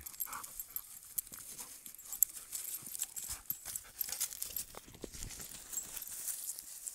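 An adult dog and a puppy wrestling in dry grass: irregular scuffling, paw thumps and rustling, with a sharp knock about two seconds in.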